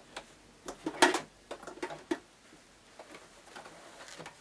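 Irregular light clicks and fabric rustles as the sewn fabric pouch is handled and drawn out from under a sewing machine's presser foot. The loudest rustle comes about a second in, and fainter ticks follow.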